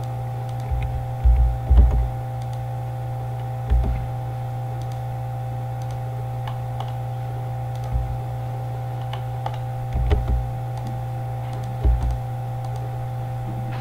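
Scattered computer keystrokes and mouse clicks, with a few dull knocks, over a steady electrical hum.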